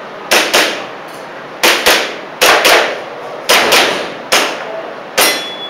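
Airsoft pistol firing about ten sharp shots, mostly as quick double taps spaced roughly a second apart, with two single shots near the end.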